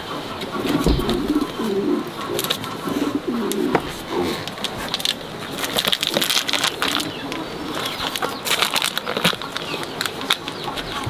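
A dove cooing repeatedly through the first four seconds or so, over scattered crinkles and clicks of hands pulling oyster mushrooms from plastic grow bags.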